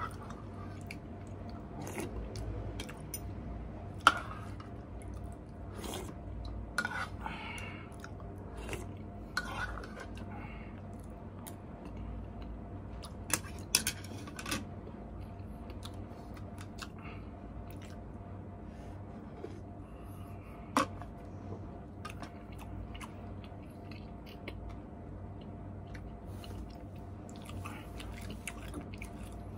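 Close-miked chewing of noodle soup, with spoon and chopsticks clinking against a ceramic bowl now and then; the sharpest clinks come about 4 seconds in, twice around 14 seconds and once around 21 seconds.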